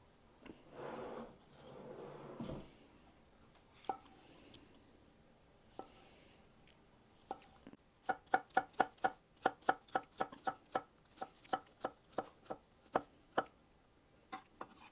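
Knife chopping vegetables on a cutting board: a few scattered cuts, then about halfway through a quick, even run of roughly four chops a second lasting some five seconds.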